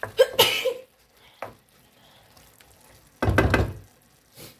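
Wooden spoon stirring fish and tomato in a frying pan, with sizzling, in two short bursts: one at the very start and one about three seconds in, the second with a dull thump against the pan.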